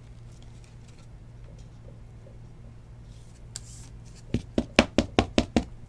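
A quick run of about seven sharp knocks, roughly five a second, in the second half: a clear plastic card holder being tapped against the table, over a faint steady hum.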